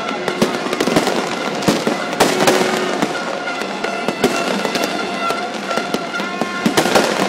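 Many fireworks and firecrackers going off at once: a dense run of sharp bangs and crackles over a continuous hiss, with several steady held tones sounding through it.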